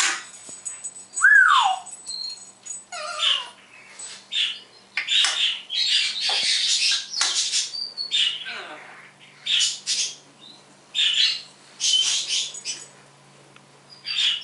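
African grey parrot calling in a string of harsh squawks and whistles, about ten separate calls, with one clear whistle falling in pitch about a second in.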